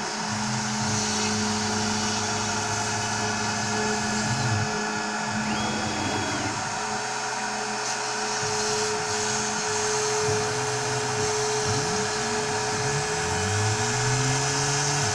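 Onefinity CNC router at work, most likely cutting foam board: the spindle runs with a steady whine while the stepper motors' low tones glide up and down as the axes speed up and slow down.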